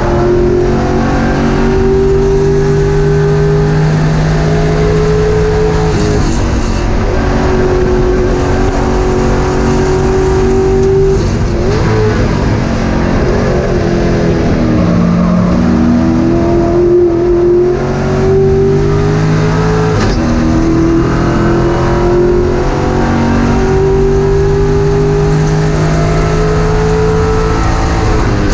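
Race car engine heard from inside the cockpit, pulling hard with its pitch climbing through each gear. The pitch drops sharply at upshifts about six and twenty seconds in. Between about eleven and fifteen seconds it falls with short jumps as the driver brakes and downshifts.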